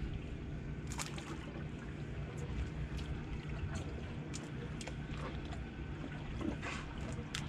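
Water splashing and trickling at the side of a boat over a steady low hum, with a few short sharp clicks scattered through.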